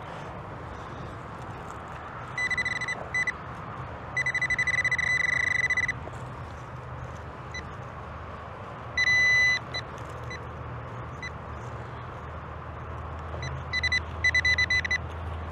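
Nokta Double Score metal detector sounding its electronic target tone over a signal reading 26, which the detectorist takes for a nickel. Short repeated chirps, then a steady tone of about two seconds, a brief louder tone about nine seconds in, and more chirps near the end.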